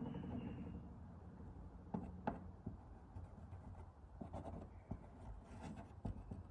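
Quiet, scattered light ticks and scratches of a plastic dessert syringe's tip being worked against a gel-coated fibreglass panel while gel coat is pressed into pinholes.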